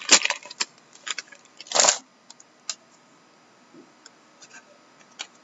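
A trading card box and pack being opened by hand: scattered light clicks of the packaging and one short rustle about two seconds in.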